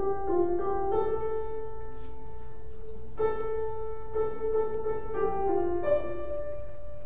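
Slow hymn tune played on piano, a melody of held notes and chords moving every second or so, with no singing.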